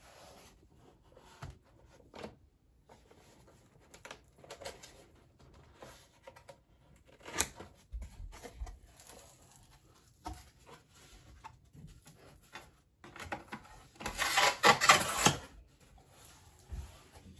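Handling of a cardboard shipping carton: scattered rubs, taps and scrapes of hands and a plastic strap on the box, with a louder stretch of cardboard scraping and tearing about fourteen seconds in as the top flaps are pulled open.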